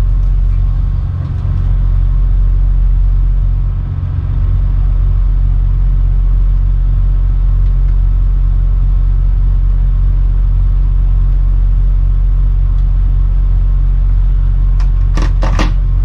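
Tugboat diesel engines running with a heavy, steady low rumble, with a few sharp clicks near the end.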